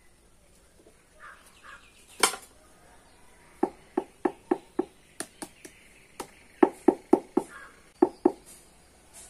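Runs of sharp knocks, about four a second, with one louder click just before them. Crows caw faintly in the background.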